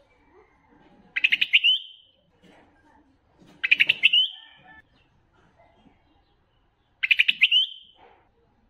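Bulbul singing: three short, loud song phrases a few seconds apart, each a quick run of notes that ends in a brief flourish.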